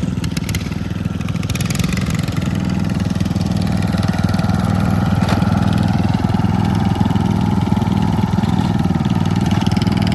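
Riding lawn mower's small engine running steadily, growing a little louder after about four seconds.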